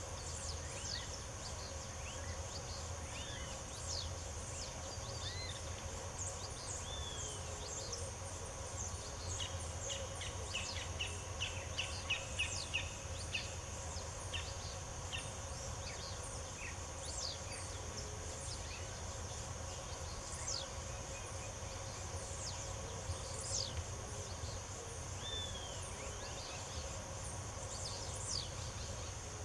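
Birds chirping and singing in short falling calls over a steady high insect drone. A quick run of repeated notes about ten seconds in is the loudest part, and a low hum runs underneath.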